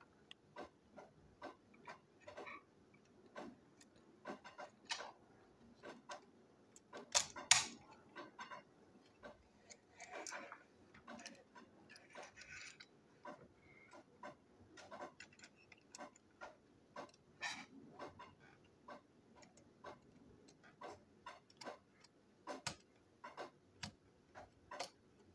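Small plastic parts of a Plarail toy locomotive chassis clicking and tapping as they are handled and fitted back together: irregular separate clicks, with a louder clatter about seven seconds in.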